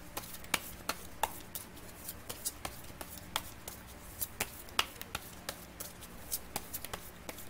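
Hands making a run of sharp, irregular clicks and taps, about three a second.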